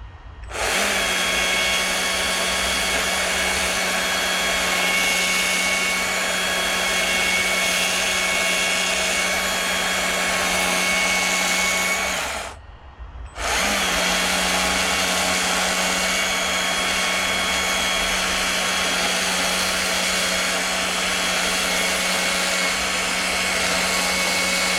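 Chainsaw running at full throttle with a steady high engine note. The throttle is released for about a second just after the halfway mark, the pitch dropping, then opened back up.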